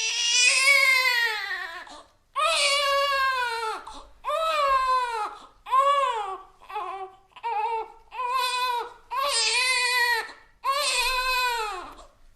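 Infant crying: a run of about nine wails with short breaths between, each wail falling in pitch at its end.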